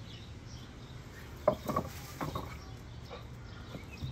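Faint high chirping over outdoor background, with a few short knocks about halfway through. The knocks are a dog's paws striking and scrabbling on a wooden fence as it jumps up at it.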